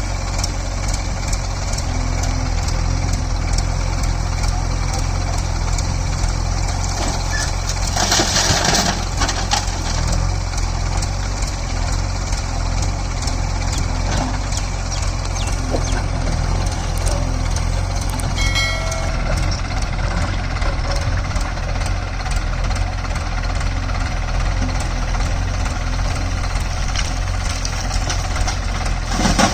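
Mahindra Arjun 555 tractor's diesel engine running steadily at low revs. A brief rush of noise comes about eight seconds in.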